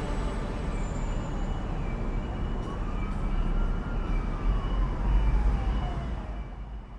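Road and wind rumble from riding in a moving vehicle. A faint whistling tone rises and then falls in the middle, and the noise fades out near the end.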